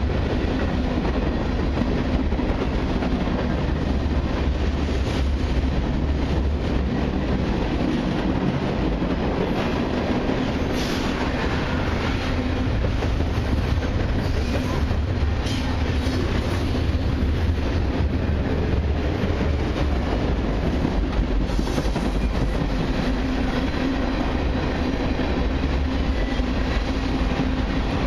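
Freight cars of a long CN mixed freight train rolling steadily past close by: steel wheels running on the rails with a clickety-clack over the rail joints.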